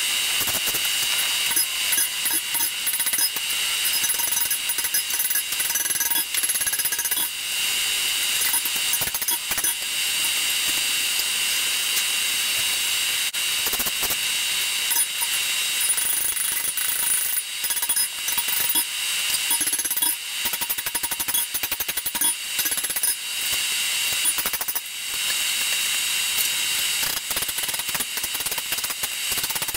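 Hammer blows on hot 5160 steel at an anvil, coming quickly and unevenly, with the anvil ringing through them as the bowie knife blade is forged.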